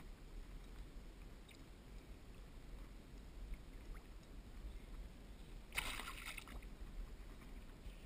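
Low rumble of wind on the microphone with a few faint ticks, and a short burst of hissing noise about six seconds in, lasting under a second.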